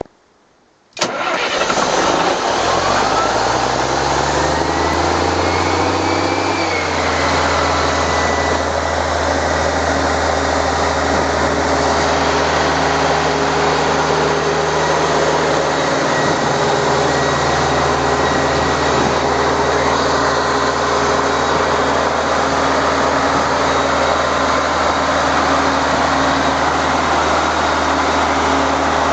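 Ingersoll-Rand XHP 750 portable air compressor's Caterpillar diesel engine starting about a second in. It climbs in pitch over the next several seconds, with a whine rising alongside, then settles into a steady run. The freshly overhauled engine runs smoothly.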